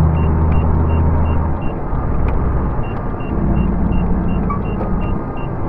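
Truck engine and road noise heard from inside the cab: a steady low drone whose pitch shifts a couple of times. Over it, a short high beep repeats about two to three times a second, pausing for about a second partway through.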